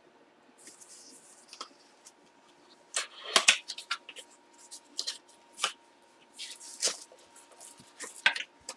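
Hands opening a small box and its packaging: scattered clicks, taps and short crinkling rustles, the loudest about three and a half seconds in, over a faint steady hum.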